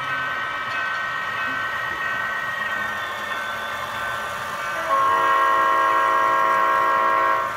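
An O-scale Atlas SD40 model locomotive's onboard sound system plays a steady diesel engine sound through its small speaker. About five seconds in, it sounds one long chord on the horn, louder than the engine, which cuts off abruptly after about two and a half seconds.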